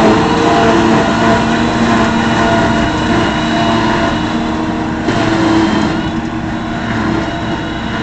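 Case IH Magnum 310 tractor working under load with a trailed JF-Stoll forage harvester running behind it, the chopper and blower making a steady whine over the engine noise as it picks up grass and blows it into a trailer. The sound eases slightly about six seconds in as the outfit moves away.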